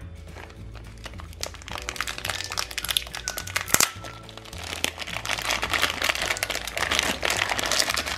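Plastic Play-Doh can and candy-mould tray handled and dough pressed into a mould: scattered clicks and crinkling, with one sharp click a little under four seconds in and denser crackling in the second half, over background music.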